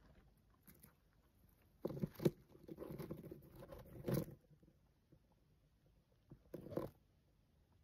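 Hamster gnawing at a peanut shell: dry crackly crunching in bursts, a longer spell of about two seconds and a short one later, with quiet between.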